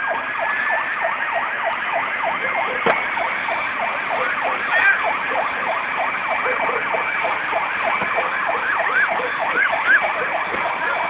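Emergency vehicle sirens in a fast rising-and-falling yelp, several overlapping, with a steady high tone held under them.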